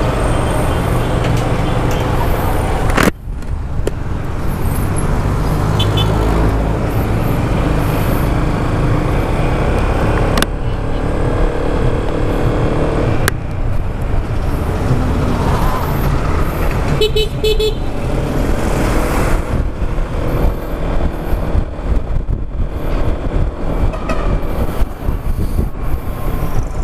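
Yamaha XMAX 300 maxi-scooter riding through town traffic: a steady rumble of engine and road noise, with a few short vehicle-horn toots, the clearest about 17 seconds in.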